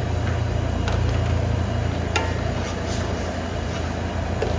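Steady low rumble under a wok of sauce being cooked, with a few sharp clicks of a steel ladle against the wok about one and two seconds in.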